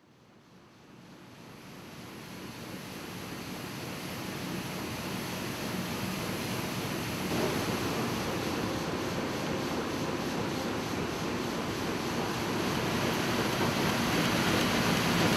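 Printing press running, a steady mechanical rush of rollers and feeding sheets that fades in from silence over the first few seconds.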